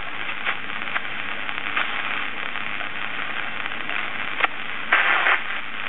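Kaide KK-848 pocket shortwave radio hissing with static from its speaker while it is tuned across the shortwave band between stations. There is a sharp click about four and a half seconds in, and a brief louder burst of noise just after it.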